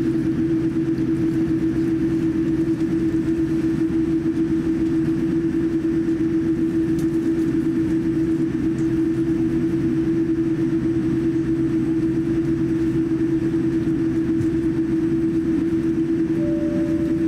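Steady airliner cabin noise inside a Boeing 787-9 taxiing: a constant hum with one strong unchanging tone and a faint hiss above it. A brief higher tone sounds near the end.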